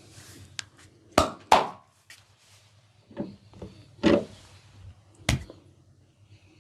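Barber's hands working a head and neck massage: a series of sharp smacks and cracks. The loudest two come in quick succession about a second in, with more strong ones about four and five seconds in and fainter ones between.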